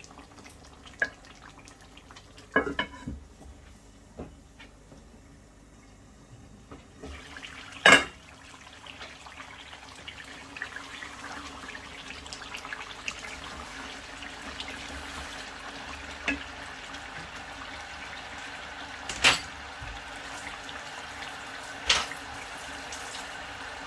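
Kitchen sounds: several sharp knocks of pots or utensils, the loudest about a third of the way in and twice near the end. From about a third of the way in, a steady watery hiss slowly builds.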